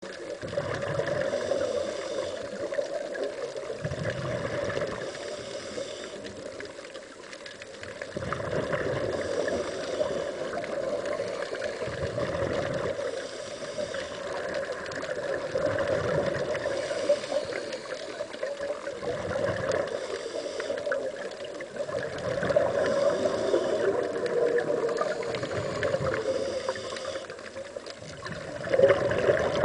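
Scuba diver breathing underwater through a regulator: a hiss on each inhale and a rush of exhaust bubbles on each exhale, repeating about every four seconds over a steady underwater hum.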